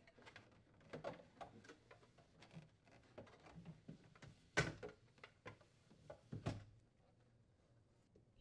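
GE refrigerator's plastic freezer air duct being worked loose and pulled out: faint plastic scraping and rattling, with a sharp click about four and a half seconds in and a softer knock about two seconds later.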